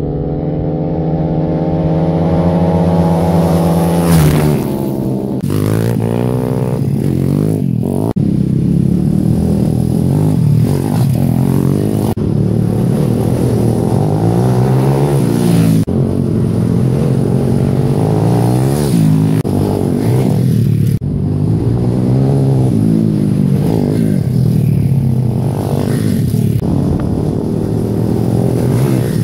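170cc pit bike engines (a WPB 170 and a Demon X Detroit 170) revving hard as the bikes ride past, the pitch rising and falling again and again as the riders work the throttle and gears. The sound breaks off sharply several times where one clip jumps to the next.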